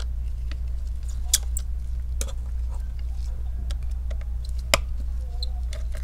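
Small clicks and scratches of a precision screwdriver working the tiny screws on an iPhone 7 Plus's front camera and ear speaker bracket, with two sharper ticks about a second and a half and nearly five seconds in, over a steady low hum.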